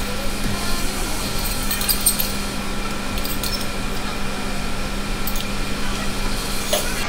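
Steel spoon clinking against a small steel serving bowl a few times, short sharp clinks over a steady background hum.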